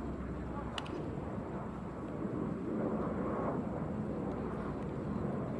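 Steady outdoor background noise in an almost empty ballpark: a low rumble with a faint steady hum, and one sharp faint click about a second in.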